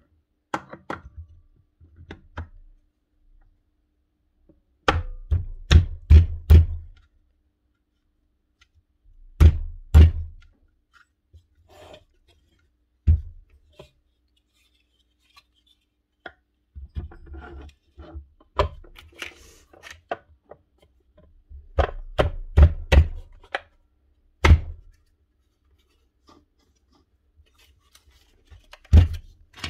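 Parts of a Makita 1805B beam planer being handled and fitted back together on a bench: bunches of sharp knocks and heavier clunks as the metal body, armature and motor housing are set down and seated, with quiet gaps in between.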